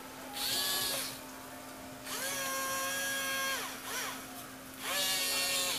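Small geared motors of a hobby robot arm whining in three spells. Each spell rises in pitch as the motor starts and falls as it stops, with a brief blip between the second and third.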